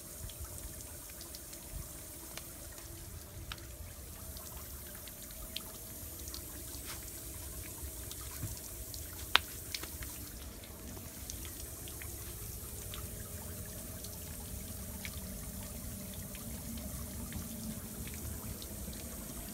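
Water trickling and dripping at an outdoor hose spigot, a steady soft trickle with scattered drip clicks and one sharper tick a little past halfway.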